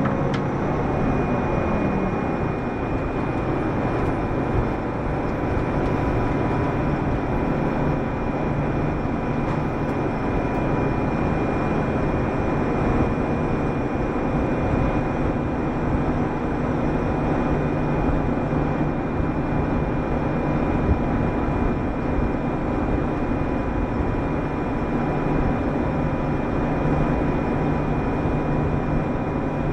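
Mitsubishi Fuso PDG-AA273KAN (Aero Star) city bus running between stops, heard inside the cabin: a steady diesel engine drone over road noise. Right at the start the engine note falls as the revs drop, then it holds even.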